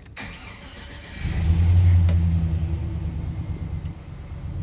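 Chevrolet Silverado's LS V8 cold-started: the starter cranks for about a second, then the engine catches and flares up to a fast idle before settling into a steady cold idle.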